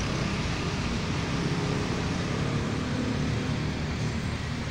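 Steady background noise, an even hiss over a low rumble, with no distinct events.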